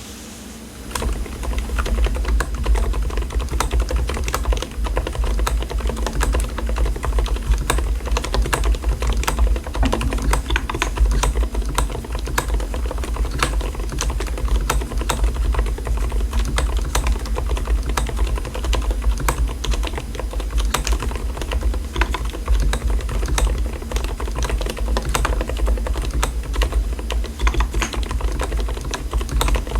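Mechanical keyboard fitted with Mstone silent (dampened) switches being typed on steadily: a fast, irregular run of keystrokes that starts about a second in, over a steady low hum.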